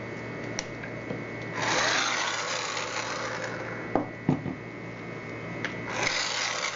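Metal parts of a knob lockset being worked loose: two stretches of scraping, one of about two seconds, and a few sharp clicks as the outer rose is pried off.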